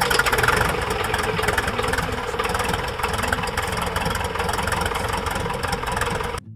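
Light aircraft piston engine and propeller running close by, a dense rapid pulsing over a rushing noise, which cuts off abruptly near the end.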